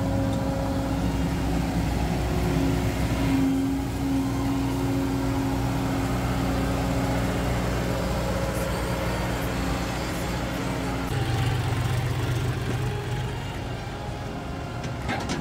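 Diesel engines of a Claas Crop Tiger 40 tracked rice combine harvester and a John Deere 4WD tractor running steadily. The engine note changes about eleven seconds in, with a stronger low hum.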